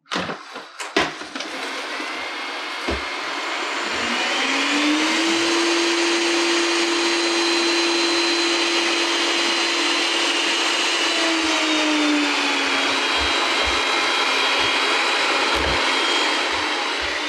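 Ecovacs Deebot T9+ robot vacuum setting off to clean: a few sharp clicks as it starts, then its suction fan spins up with a rising whine about four seconds in and runs steadily under the brush and airflow noise. A few light knocks sound near the end as it drives over the floor.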